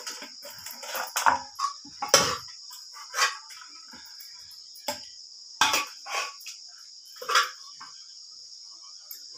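Steady high-pitched trilling of crickets, with several irregular knocks and scrapes on a stone grinding slab (sil-batta) where cooked greens are being ground.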